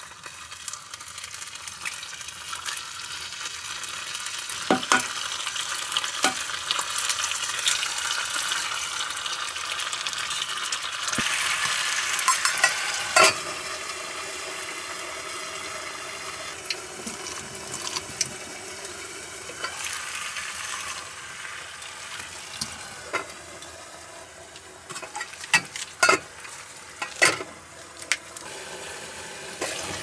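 Food sizzling in a frying pan over a fire: a steady frying hiss with scattered sharp clicks and pops, the loudest about halfway and a cluster near the end.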